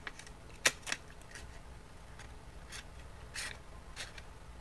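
Scissors cutting through paper: two sharp snips of the blades a little under a second in, then a few softer cutting strokes.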